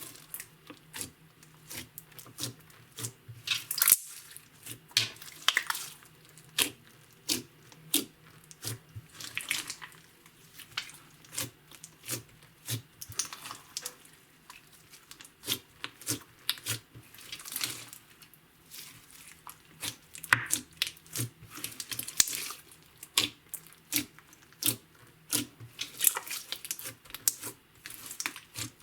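Clear slime being mixed and kneaded by hand, giving an irregular stream of sticky clicks and wet pops.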